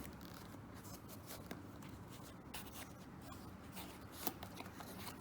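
Faint rustling and a few light clicks as a wristwatch is handled and lifted out of its presentation box.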